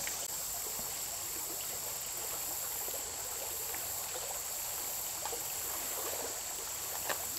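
Shallow river running over rocks in a steady rushing wash, with a constant high insect drone above it.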